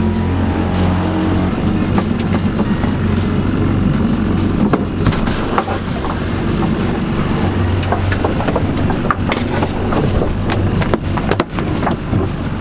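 Boat's outboard motor running with a steady low drone while the boat is under way, with frequent irregular sharp knocks over it.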